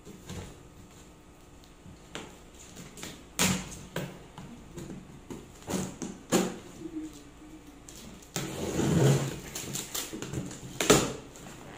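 Scissors cutting and prying at packing tape on a cardboard box, with sharp clicks and knocks against the cardboard. A longer stretch of rough rustling and scraping comes from about eight to ten seconds in.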